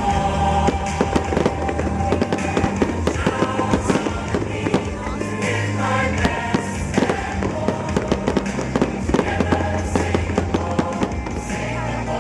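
Fireworks going off in quick, irregular bangs and crackles over music playing throughout, a medley of Singapore National Day songs.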